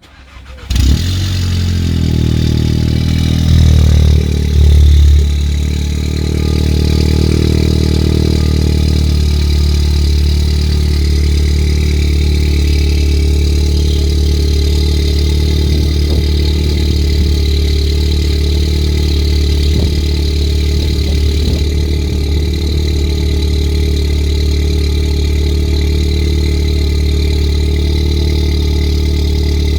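A car engine cold-starting: it catches about half a second in and flares up, surges loudly twice around four and five seconds in, then settles into a steady idle.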